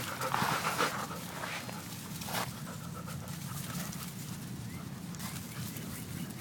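Labrador retriever puppies panting close by, with a stronger breathy rush in the first second and light scuffing clicks.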